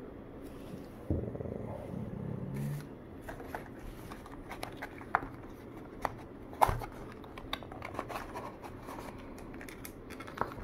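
Handling noise from a pod vape and its cardboard box with foam insert: fingers rubbing and tapping, with a soft thump about a second in and a run of small clicks and scrapes, the sharpest about two-thirds of the way through.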